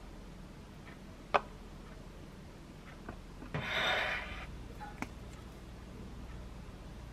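A sharp click about a second in, then a short scrape near the middle as a ceramic plate is slid across the countertop, and a faint tap after it.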